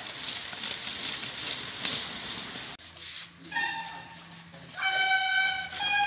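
A steady rushing noise, then, from about halfway through, a series of loud held horn-like notes, each lasting up to a second, stepping between two slightly different pitches.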